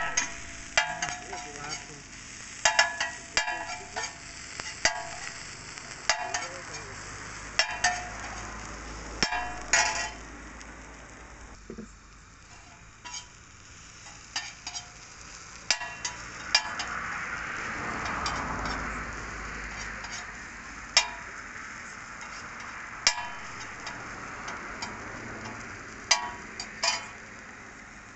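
Food sizzling on a large flat griddle while a metal spatula stirs and scrapes it. The spatula taps against the pan every second or two, each tap ringing briefly. The sizzle swells for a few seconds a little past halfway.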